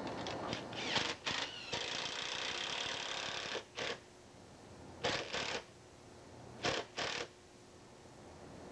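Cordless drill run in short trigger bursts against white roof trim: a few quick spurts, then a run of about a second and a half with a steady motor whine, then three pairs of short bursts.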